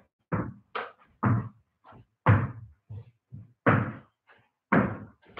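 A series of about a dozen dull thuds and knocks at an uneven pace, some louder than others, as a person works a hurling ball and hurley during a ball-handling drill.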